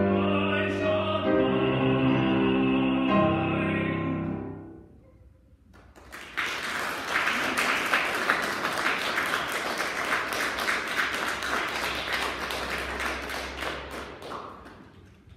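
A male classical singer and a grand piano finish an art song on a held final note, which dies away about four seconds in. After a brief pause the audience applauds for about eight seconds, and the applause fades out near the end.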